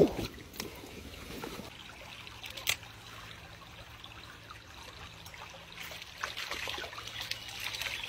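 Shallow woodland stream trickling over rocks, with one sharp click about two and a half seconds in.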